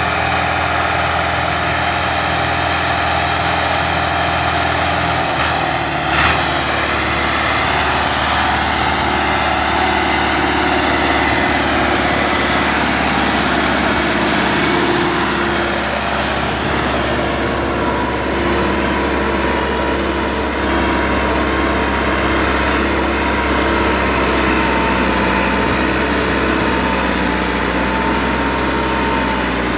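Massey Ferguson 385 4x4 tractor's four-cylinder diesel engine running steadily under load as it drags a rear land-levelling blade through loose soil.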